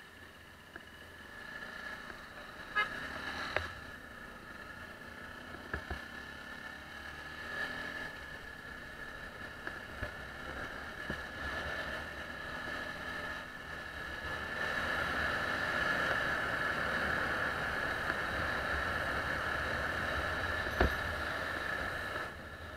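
Small single-cylinder dirt bike, a Yamaha WR125R, riding along a paved road: engine running with a steady high whine, and wind noise on the microphone. The sound gets louder about two-thirds of the way through as speed builds, and a few sharp knocks come from bumps in the road.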